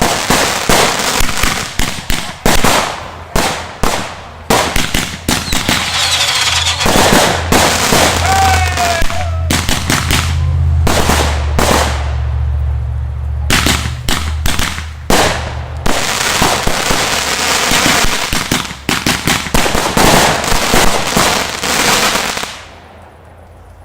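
Fireworks display: a dense barrage of shell bursts and crackling firecrackers going off in quick succession, stopping suddenly near the end.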